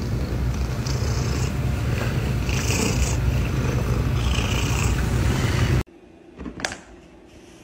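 A cat purring loudly close to the microphone, a steady low rumble that cuts off abruptly almost six seconds in. A single short, sharp sound follows about a second later.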